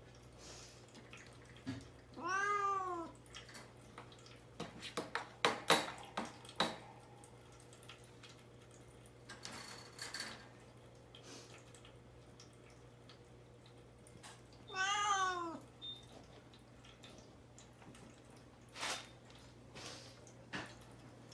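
Kitten meowing from inside a cage, two drawn-out meows that rise and fall, about twelve seconds apart: cries to be let out. A few light clicks and knocks fall between them.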